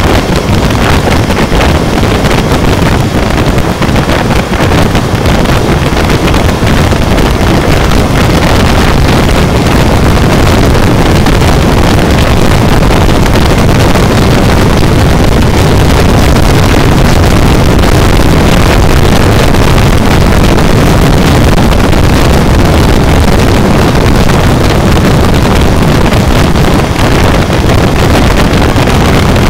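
Loud, steady wind rush on the microphone mixed with the engine noise of a Honda CB400 motorcycle cruising at highway speed.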